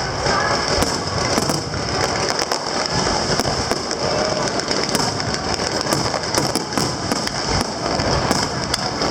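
Aerial fireworks going off in a dense, continuous barrage: many overlapping bangs and crackles with no pause.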